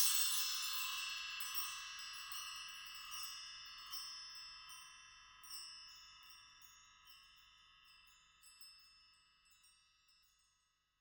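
Several high-pitched metal chimes ringing together, loudest at the start, with a few more light strikes now and then as the ringing slowly dies away. It fades out about nine or ten seconds in.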